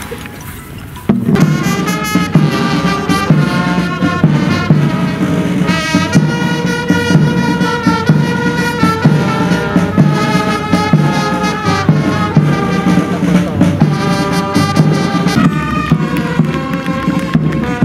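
Brass band playing a march with a steady drum beat, starting suddenly about a second in.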